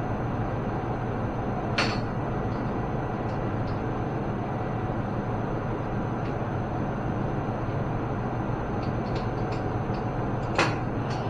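Steady low machine hum with two sharp knocks, one about two seconds in and one near the end, and a few faint ticks between them.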